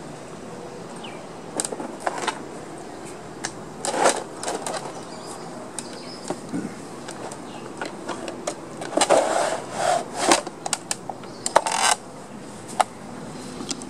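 Irregular clicks, knocks and clattering as a wooden field easel's paint box is set up: metal paint tubes and brushes shifted and knocked about in the tray and the easel's fittings handled, with a few louder rattles about four seconds in and again later.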